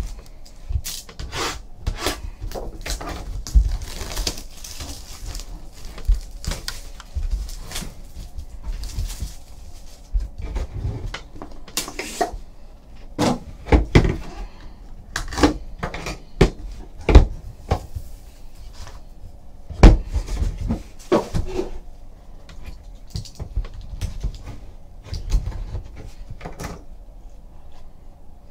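A sealed Panini National Treasures trading-card hobby box being opened and handled by hand: irregular cardboard scraping and rustling with sharp knocks, the loudest a handful between about twelve and twenty seconds in.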